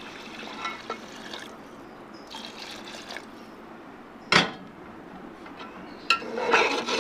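Water pouring from a glass into a steel pot of soaked basmati rice, filling it. There is a sharp knock about four seconds in, and a slotted spoon stirs through the watery rice near the end.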